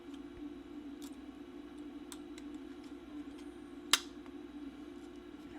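Small clicks from hand tools working a replacement capacitor into a circuit board, with one sharp click about four seconds in, over a steady low hum.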